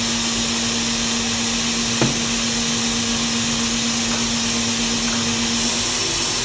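HVLP paint-sprayer turbine running steadily: a vacuum-like rush of air with a steady hum. There is a short tap about two seconds in. Near the end the hum stops and the rush of air gets louder.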